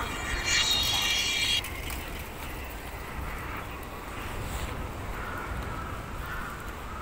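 A high-pitched squeal with many overtones that cuts off suddenly about a second and a half in, over a steady low street rumble.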